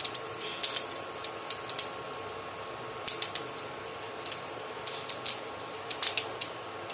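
Cumin seeds crackling in hot oil in a frying pan: irregular sharp pops and clicks, a few each second, as the tempering sizzles.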